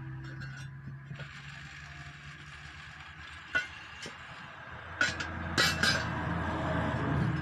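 Steel split lock ring of a truck wheel rim clinking against the rim as it is worked into its groove: a few sharp metallic clicks about three and a half seconds in, then a quick cluster of louder clicks around five to six seconds in. A low rumble swells near the end.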